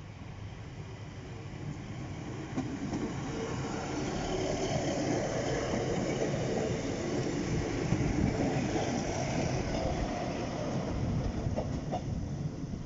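Diesel multiple-unit passenger train passing over a level crossing. Its running noise builds over the first few seconds, is loudest through the middle and eases slightly toward the end, with a few sharp clicks near the end.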